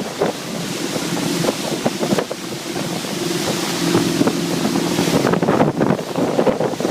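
Motorboat engine running at a steady pitch while the boat travels, with wind buffeting the microphone.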